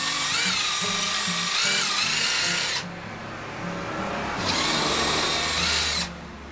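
Cordless impact driver running in two bursts, the first about three seconds long and the second shorter, starting about four and a half seconds in; its motor whines, the pitch wavering as it spins a socket.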